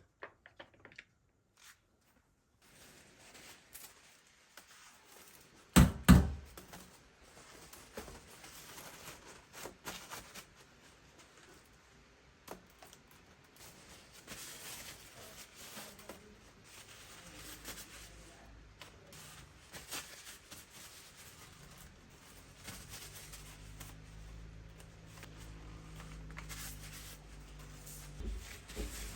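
Rustling and tearing handling sounds with scattered small knocks, and one loud thump about six seconds in. A low hum comes in and grows louder near the end.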